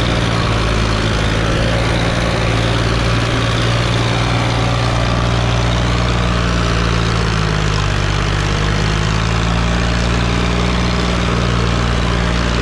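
Sonalika DI 745 III tractor's three-cylinder diesel engine running steadily under heavy load while towing a trolley heaped with sand. Its pitch dips a little about seven seconds in and comes back up a few seconds later.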